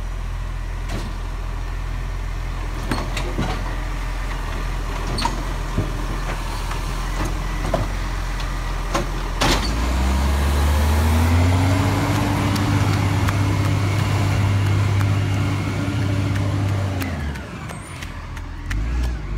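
Garbage truck engine running at a steady low idle, then speeding up about halfway in, holding a higher steady pitch for several seconds and dropping back near the end. Scattered sharp knocks and clanks are heard throughout.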